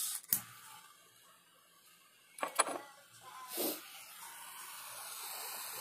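A few clicks and knocks, then a butane torch lighter lit about four seconds in, burning with a steady hiss that slowly grows louder.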